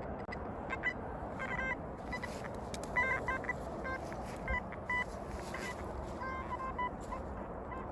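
Metal detector sweeping, giving many short, irregular beeps of a steady pitch over a constant background hiss.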